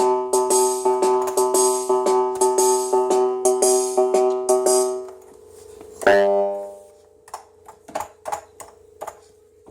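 Casiotone MT-100 electronic keyboard holding a chord over a steady ticking beat, about three ticks a second. About five seconds in the chord stops; one more chord sounds briefly, then a thin held note carries on with faint ticks.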